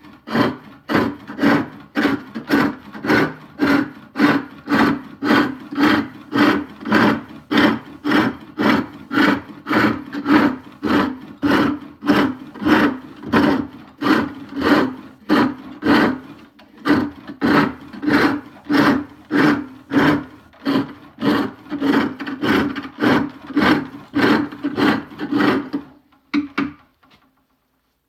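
Spring pole lathe, its cord wrapped three times around the work, turning wood: a cutting tool scraping and shaving the spinning workpiece in rhythmic strokes roughly every half second, one per pump of the treadle. The strokes stop shortly before the end.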